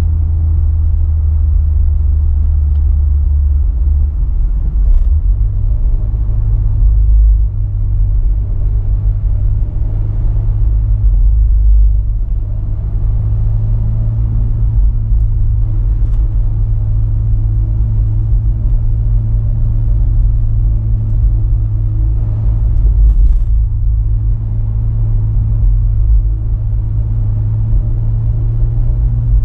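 Fiat 124 Spider's turbocharged 1.4-litre four-cylinder running steadily on the move, with continuous road rumble. The engine note rises a little about five seconds in and then holds.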